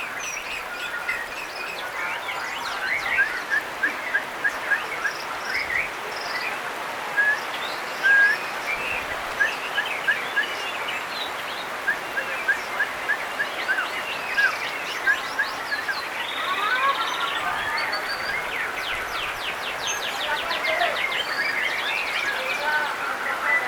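White-rumped shamas (murai batu) singing, several birds at once: short sharp whistled notes repeated a few times a second, then fast rattling trills in the second half, over a steady background hiss.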